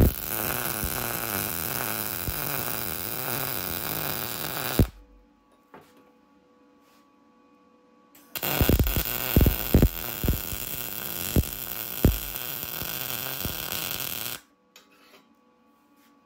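Electric arc welding on the steel battery box: two runs of welding, the first about five seconds long and the second about six, each a steady crackling buzz with a few sharp pops, starting and stopping abruptly.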